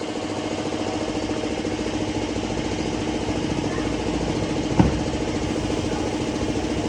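An engine idling steadily with an even pulsing beat, and one short knock about five seconds in.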